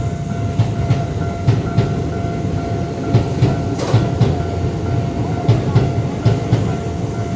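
Keisei 3000-series electric train passing loudly over a level crossing, its wheels beating a steady clickety-clack over the rail joints. A continuous high tone runs underneath.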